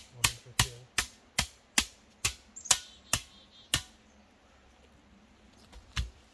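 Hammering: about ten sharp strikes at a steady pace of two to three a second, stopping a little over halfway through, then a single further strike near the end.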